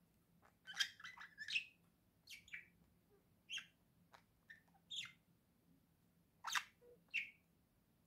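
Budgerigar chirping: a quick run of short chirps about a second in, then single short chirps every second or so.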